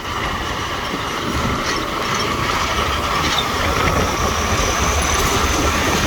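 A moving vehicle's engine and road noise with rattling, steady and growing a little louder.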